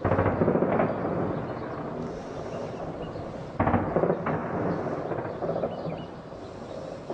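Two heavy shelling blasts, about three and a half seconds apart, each a sudden boom followed by a long rumble that dies away over a second or two.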